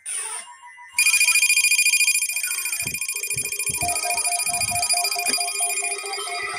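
The last of the SAME data bursts, then about a second in the NOAA Weather Radio 1050 Hz warning alarm tone starts: a loud, steady, harsh tone that marks the weekly alert test. From about three seconds in, a lower beeping pulses under it at about four beeps a second.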